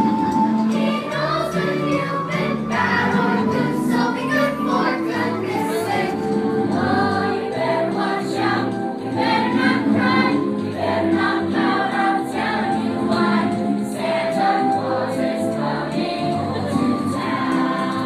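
Music with a group of voices singing together.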